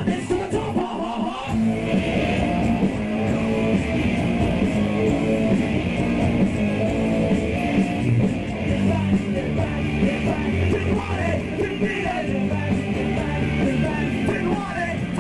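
Punk rock band playing live through a PA system: loud electric guitars over bass and drums in a continuous full-band sound.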